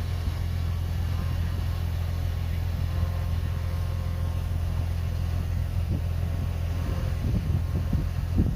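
Diesel engine of heavy earthmoving machinery running steadily with a low, even hum, with a few uneven low surges near the end.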